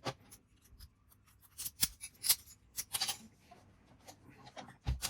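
Sharp metallic clicks and rattles of an ABUS 83AL/45 padlock and its key being handled, with the loudest clacks about two and three seconds in.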